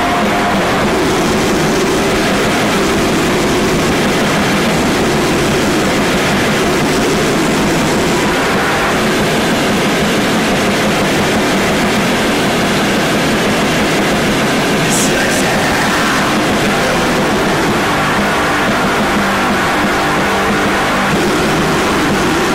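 Raw bestial black metal/noise recording: a dense, heavily distorted wall of harsh noise at a constant loudness, with faint held tones buried in it. There are two brief high crackles about fifteen seconds in.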